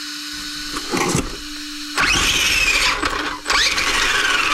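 RC monster truck's brushless motor and drivetrain revved on the bench with the wheels in the air: a whine rises sharply about halfway through, dips, rises again, then winds down in falling pitch. This is a throttle test of a freshly calibrated Hobbywing 10BL120 ESC driving a 3150kV motor.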